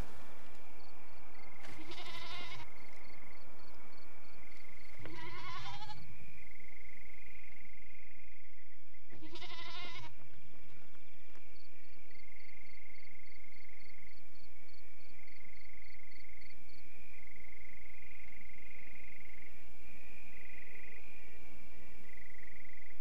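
Livestock bleating: three wavering calls, each about a second long, the last near the ten-second mark. Under them runs a steady high whine with rows of fast, even ticks.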